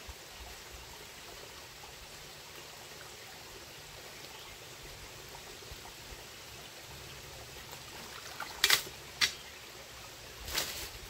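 Shallow rocky stream flowing with a steady trickling hiss. Near the end, three short, sharp splashes as someone wading works with their hands in the water.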